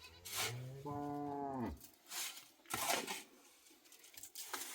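A cow mooing once: a single low call of about a second and a half that drops in pitch as it ends. A few short rustling noises follow it.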